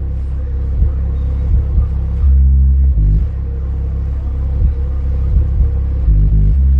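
12-inch American Bass XFL subwoofer playing deep bass at high volume, with heavier bass hits about two seconds in and again near the end.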